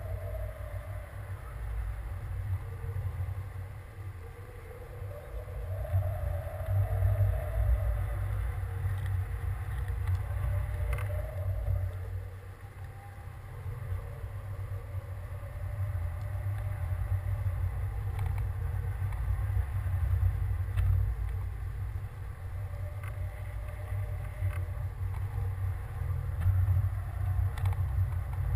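Wind buffeting the microphone of a camera hanging under a high-altitude balloon: a low, gusting rumble that swells and eases, with a few light clicks from the rig.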